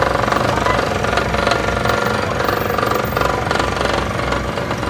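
A steady, loud mechanical drone from a running motor, with a fast rattling over it.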